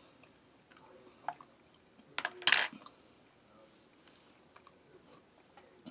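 A spoon is set down with a clatter on a plastic compartment tray about two and a half seconds in, with a few light clicks and taps of handling around it.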